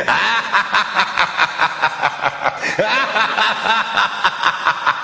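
A rapid, high cackling laugh, about five or six 'ha' pulses a second, going on without a break.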